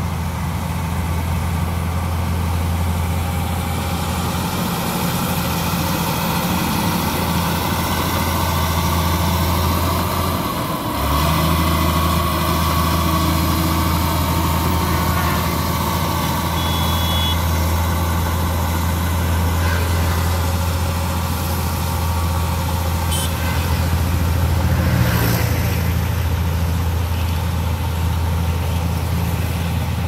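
Crawler bulldozer's diesel engine running steadily while it works, its low note changing about eleven seconds in.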